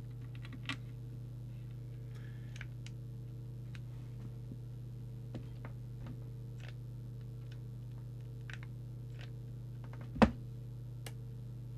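Faint scattered clicks and taps as the wiring harness and a tool are moved about inside an open CB radio chassis, with one louder knock about ten seconds in, over a steady low electrical hum.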